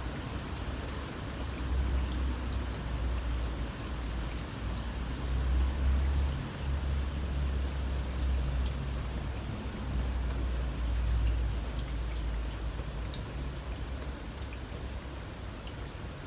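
Light rain with a steady high-pitched insect trill, over a low rumble of road traffic. The rumble swells about two seconds in and eases off in the last few seconds.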